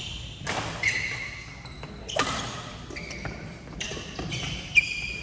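Badminton rally: rackets striking the shuttlecock in sharp cracks, several times over, the hardest hit near the end, with court shoes squeaking on the wooden floor.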